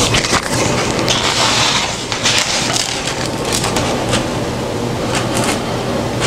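Crackling, creaking handling noise of a foam plate being picked up and held close to the microphone, with a few sharp clicks, over a steady low hum.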